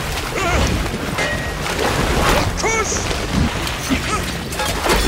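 Action-film soundtrack: several short shouts and yells over a dense haze of sea and ship noise with a low rumble.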